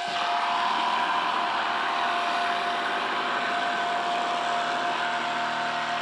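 Electric sheep-shearing machine running steadily, a motor buzz with a steady whine.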